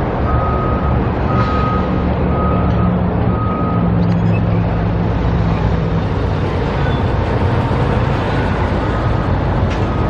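A construction vehicle's reversing alarm beeping about once a second, then fading out about four seconds in, over the steady low running of an engine and traffic.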